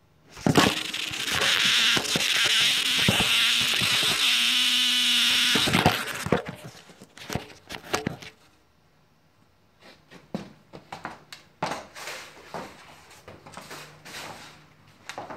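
A loud, steady noise lasts about five seconds, then stops. It is followed by scattered knocks and footsteps of work boots on a plywood floor.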